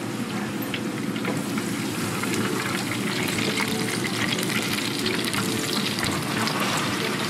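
Battered chicken pieces deep-frying in a large pan of hot oil: a steady, dense sizzle and crackle of bubbling oil, getting a little louder about two seconds in.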